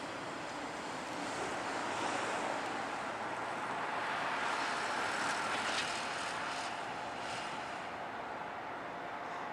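A DM&E freight train running along the tracks at a distance: a steady noise that builds over the first few seconds and then eases off. A thin steady whine joins it about halfway through.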